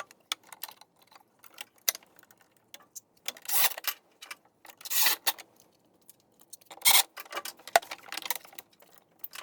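Irregular clicks, small knocks and a few short scrapes of a carbon/kevlar underbody panel and its fastening hardware being handled and fitted under a car.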